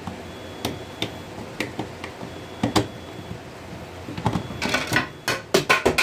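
Screwdriver clicking and scraping against a plastic fire alarm horn strobe as a mounting screw is worked in, with a few separate clicks. Near the end comes a quick run of louder plastic clatters as the device's cover comes off.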